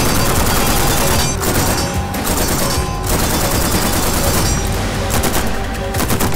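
Rapid strings of suppressed rifle fire from a General Dynamics RM277 bullpup in 6.8x51mm, shot after shot in quick runs with short breaks, over background music.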